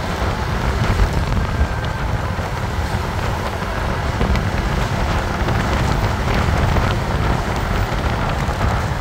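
Steady wind rumble on the microphone of a moving motorcycle, with road and vehicle noise underneath.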